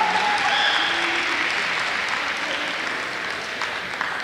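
Audience in a gymnasium applauding and dying down gradually, with a few brief shouts near the start.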